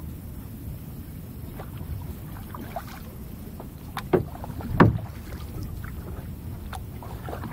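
Canoe paddling on calm water: paddle strokes dipping and splashing with small drips, over a low steady rumble. Two louder splashes come about four and five seconds in.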